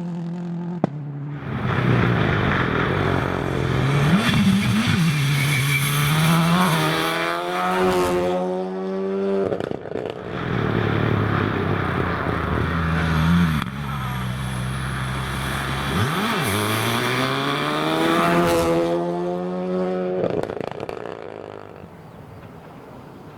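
Rally car engine at full throttle on a gravel stage, revs climbing hard and breaking off at each gearshift, over the hiss and clatter of tyres throwing gravel. A sharp crack comes about a second in, and the sound fades near the end as the car drives away.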